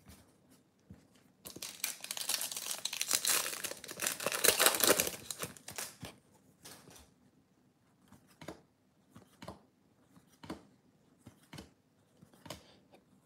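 A trading-card pack's plastic wrapper torn open and crinkled for about four seconds, then the cards slid one behind another with soft clicks about once a second.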